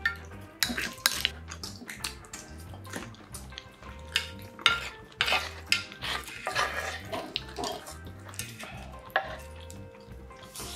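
A wooden spoon and another utensil scrape and click against shallow black pans while scooping up rice risotto and corn cheese, with sharp clinks scattered through.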